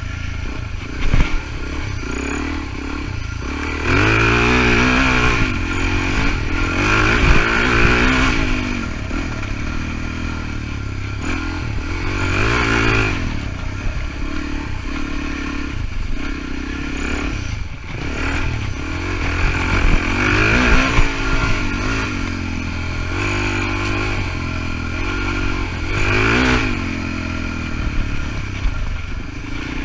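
Suzuki DR-Z400E dirt bike's single-cylinder four-stroke engine under way on a trail, repeatedly revving up and dropping back as the rider accelerates and shifts, with the odd sharp knock from the bike over bumps.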